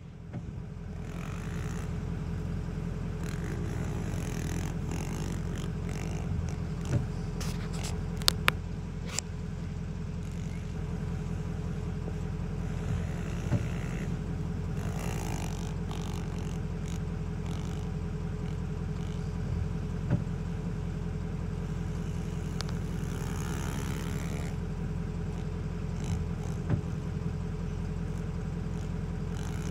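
Small pit bike engine running with a steady low drone, its pitch shifting a little as the rider works the throttle, with a few sharp clicks about eight seconds in.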